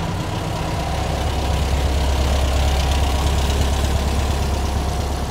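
Split-window Volkswagen bus engine running at low speed as the bus rolls slowly past, a steady low drone that grows a little louder around the middle.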